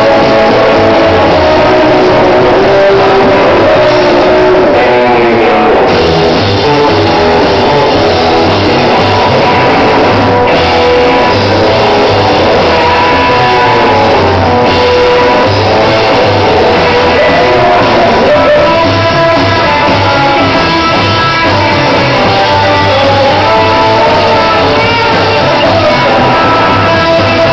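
Live rockabilly-style band playing loud: hollow-body electric guitar, slapped upright bass and drum kit, with shouted singing over the top.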